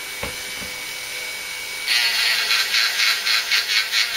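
A small rotary tool spinning a 400-grit wet-and-dry abrasive disc on a glass paperweight. It gives a faint steady whine, then about two seconds in the disc bites into the wet glass and a loud gritty grinding starts, pulsing about five times a second.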